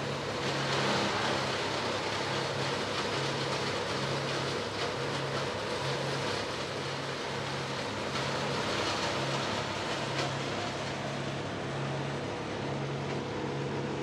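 A large engine running steadily under an even rushing noise, its low hum fading in and out.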